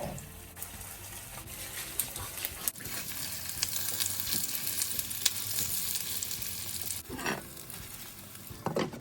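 Syrniki (cottage-cheese pancakes) sizzling as they fry in oil in a pan, with occasional light clicks. The sizzle swells in the middle and cuts off suddenly about seven seconds in.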